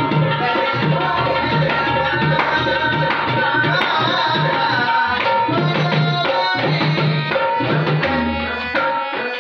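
A male voice singing a song over tabla strokes in a steady rhythm, with a harmonium holding chords underneath.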